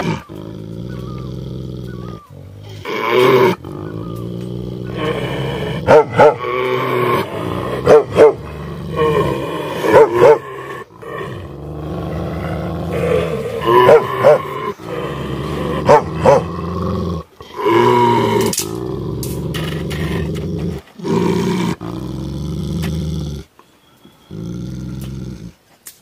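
Tibetan mastiffs growling low and steadily, with loud barks or snarls breaking in about every two seconds. The growling drops away shortly before the end.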